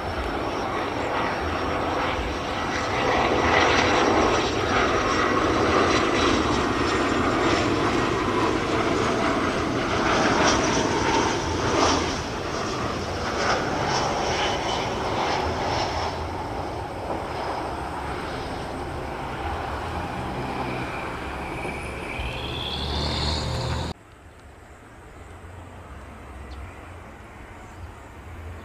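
Gulfstream G450 business jet on landing approach, its twin Rolls-Royce Tay turbofans giving a steady jet rumble with a high whine. The whine rises in pitch shortly before the sound cuts off abruptly about 24 seconds in. After the cut comes the much fainter jet noise of a distant McDonnell Douglas MD-83 on approach.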